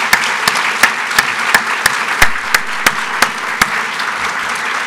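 Audience applause in a hall: many people clapping, with one set of loud, distinct claps at about three a second standing out until near the end.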